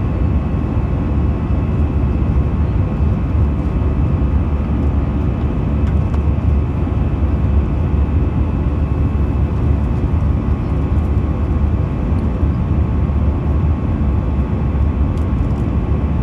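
Steady cabin noise inside an Airbus A320: a constant low drone of engines and airflow, with a few faint steady whining tones over it.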